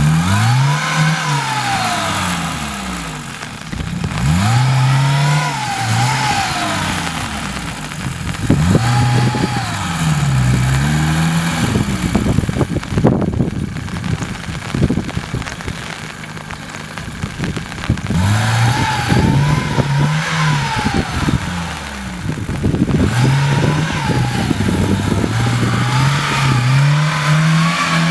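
Four-wheel-drive car engine revving up and dropping back over and over while driving off-road, with a stretch of rapid knocking and rattling about halfway through.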